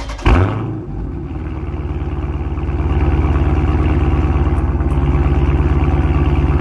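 Car engine heard at its exhaust tip. It catches with a loud burst just after the start, then idles with an even exhaust pulse, growing a little louder about three seconds in.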